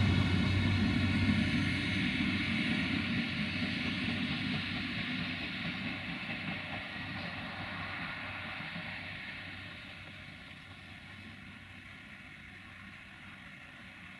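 Duewag DH2 diesel multiple unit's engine working hard as the railcar pulls away, its deep rumble and engine tone fading steadily into the distance.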